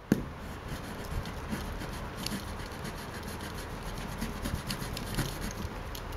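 Folding multi-tool knife blade scraping along fibreglass-reinforced filament packing tape on a cardboard box: a steady scratchy rasp with faint ticks. The blade is failing to cut through the tape.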